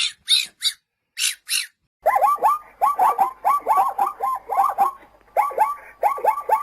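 Animal calls. First a few short, high-pitched squeaky calls with pauses between them; then, after a brief silence about two seconds in, a rapid chatter of short bird calls, several a second, each dipping in pitch, as from a flock.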